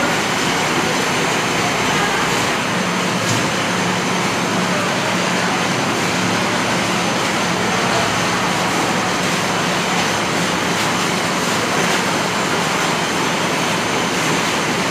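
Steady loud rushing background noise, with a low steady hum that sets in about three seconds in.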